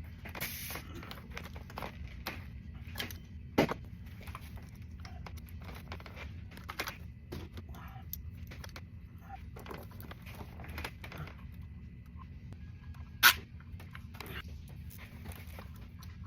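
Steady low workshop hum with scattered light clicks and knocks, and two sharp, louder knocks: one about four seconds in and one about three seconds before the end.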